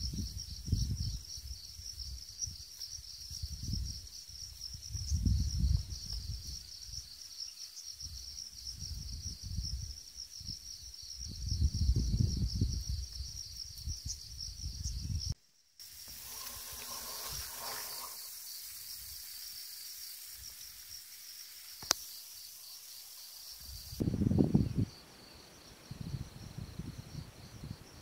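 Insects chirping in a steady, fast-pulsing high drone over irregular low rumbles. About halfway through the sound cuts out for a moment, and a steady hiss takes over for several seconds before the chirping returns.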